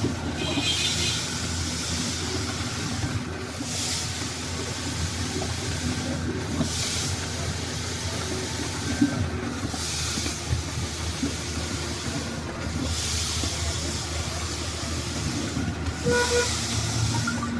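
Concrete-pouring machinery running steadily with a low hum, its hiss swelling about every three seconds.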